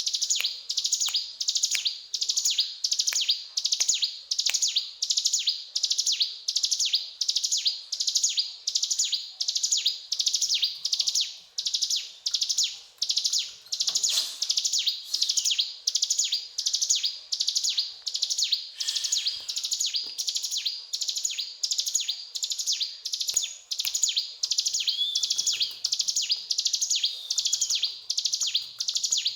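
Ciblek gunung songbird singing continuously in a rapid, sharp chattering 'cetrakan' pattern: short high-pitched bursts repeated about twice a second.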